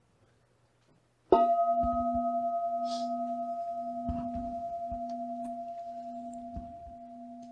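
A singing bowl struck once about a second in. It rings with one steady tone and a fainter higher overtone, wavering as it slowly fades, with a few soft low thumps beneath it.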